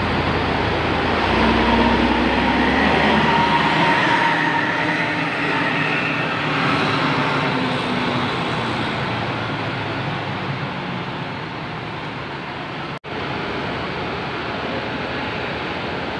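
Large coach bus engine running as the bus pulls past close by and drives away, loudest in the first few seconds and then easing to a steady rumble of vehicle noise. A momentary gap in the sound about 13 seconds in.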